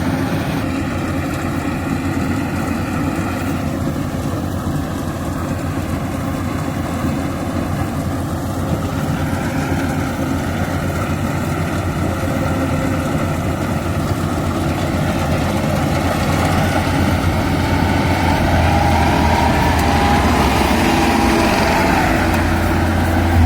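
Yanmar AW82GV combine harvester's diesel engine running steadily, getting somewhat louder in the last few seconds.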